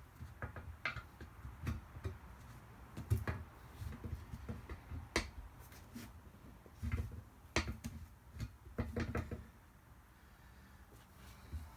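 Spare-tire irons levering a tire bead off a steel rim by hand: irregular metal clinks and knocks with dull thuds from the tire, coming in clusters, with a quieter stretch near the end.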